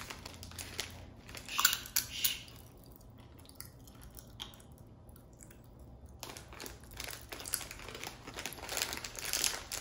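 Popping candy crackling in a mouth: a spatter of tiny irregular pops, with a couple of louder clusters about two seconds in and a dense, steady crackle over the last few seconds.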